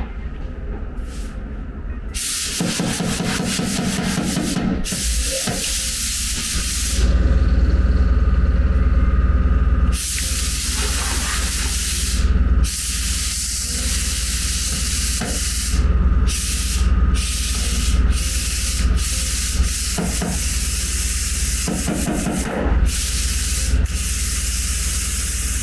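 Power sander running against a metal body panel, a steady rushing scrape with a low hum, stopping briefly several times.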